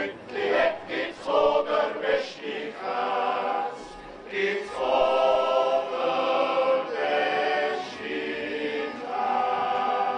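Background music of a choir singing in harmony, holding long chords of a second or two each.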